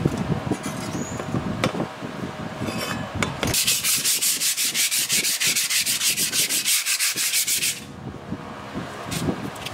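Sandpaper scrubbed quickly back and forth along a wet, rusty steel machete blade, about seven strokes a second, taking off rust, from about three and a half seconds in until near the end. Before that come softer scrapes and a few knocks as the blade is handled in a plastic tray.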